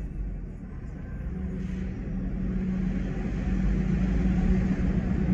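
Car driving, heard from inside the cabin: a steady low rumble of engine and road noise with a steady hum, growing louder over the few seconds.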